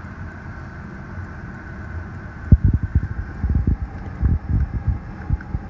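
Steady hum of a car idling while parked, overlaid from about two and a half seconds in by a run of dull, irregular low thumps and bumps.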